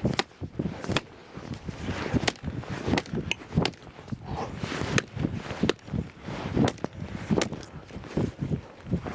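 Footsteps crunching in snow, with irregular crunches and knocks about one or two a second.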